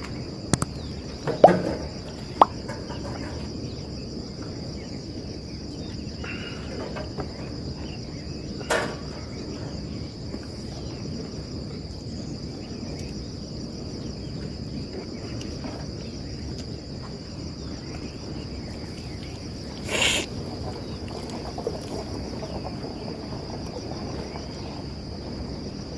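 Insects chirring in a steady, high-pitched chorus. A few sharp clicks come in the first three seconds, and two short rustles about nine and twenty seconds in.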